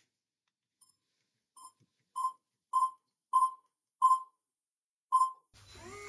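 SwitchBot Keypad Vision beeping as a passcode is keyed in: short, same-pitched beeps about half a second apart, one for each key press, with the last beep after a short pause.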